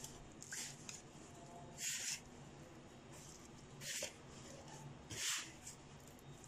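A hand mixing flour with lukewarm water added from a glass bowl, in a plastic tub, to start a dough: three short, soft swishing bursts, about two seconds apart, over a faint low hum.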